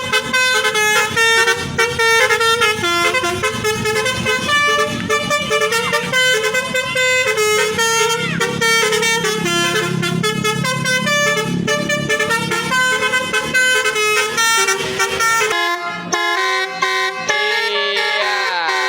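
Telolet basuri bus horn, a multi-tone musical horn, playing a fast melody of short notes that change pitch several times a second. Near the end the notes slide down in pitch.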